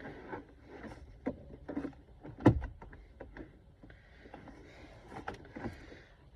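Hard plastic parts of the glove compartment being handled, a series of clicks and knocks with one loud knock about two and a half seconds in, and some rustling and scraping in the second half.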